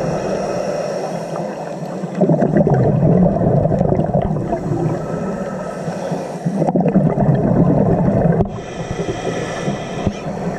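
Underwater sound picked up by a camera in its housing: crackling, gurgling bubble and water noise that swells and fades in long surges, with quieter hissing stretches between.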